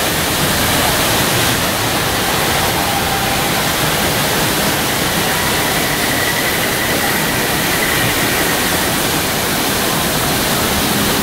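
Waterfall rushing steadily, a loud, even wash of water noise.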